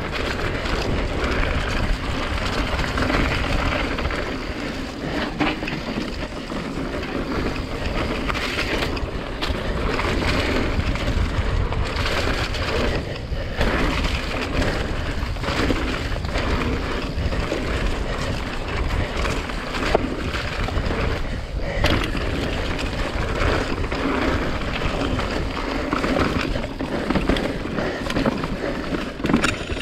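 Mountain bike riding fast down a dirt trail: wind buffeting the microphone over the rumble of tyres on dirt, with frequent clatters and knocks as the bike rattles over bumps.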